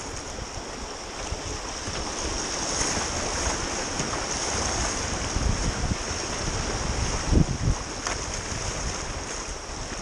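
Water rushing over a rocky river rapid around a kayak, with wind buffeting the microphone. The rush grows louder a couple of seconds in, and a brief low buffet stands out about seven seconds in.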